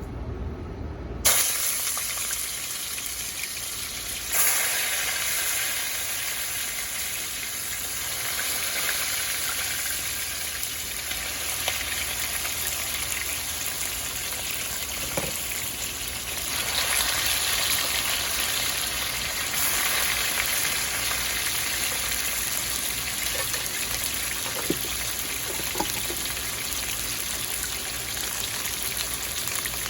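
Seasoned chicken pieces browning in hot vegetable oil in a pot: a steady frying sizzle that starts suddenly about a second in as the chicken goes into the oil and gets louder a few seconds later as more pieces are added.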